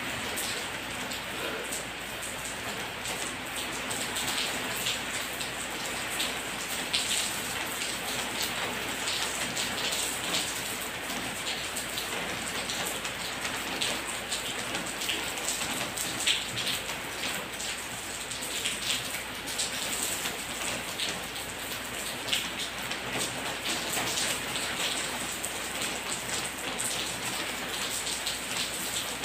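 Steady pattering of falling water: many small drop-like ticks over an even hiss.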